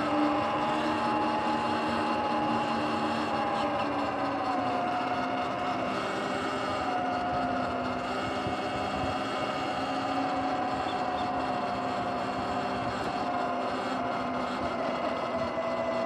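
Sur-Ron electric dirt bike under way: the motor and drivetrain whine steadily, the pitch drifting slightly up and down with road speed, over a steady rush of wind and tyre noise.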